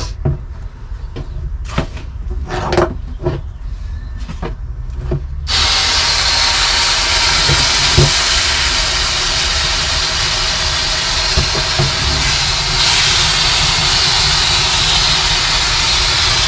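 A few knocks and clatter over a low steady hum. Then, about five and a half seconds in, a hose spray wand switches on and water jets onto the fibreglass cockpit floor of a sailboat as a loud steady hiss.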